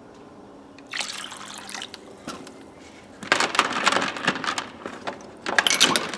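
Vinegar being poured and splashing, in a short spell about a second in and a longer, heavier one from about three seconds in.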